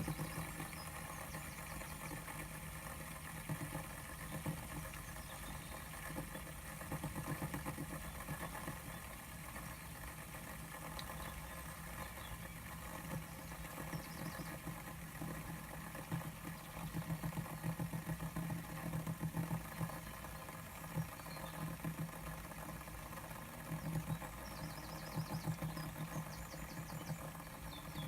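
Wheel-design fidget spinner whirring on its bearing: a low, steady buzzing hum that swells slightly a few times.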